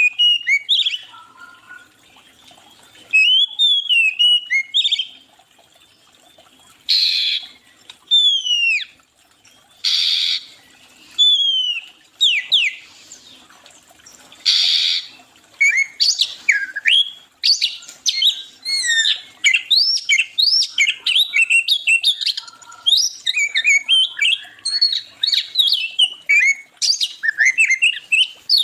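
Songbirds singing: clear whistled phrases sliding up and down, broken by three short harsh calls. From about halfway on, a fast, dense run of chirps.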